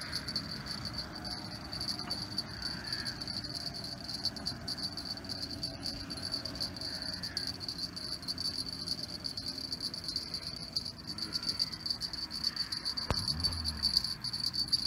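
Steady high-pitched insect trilling, unbroken and fast-pulsing, over a light low rumble of wind. A sharp click and a short low thud come about 13 seconds in.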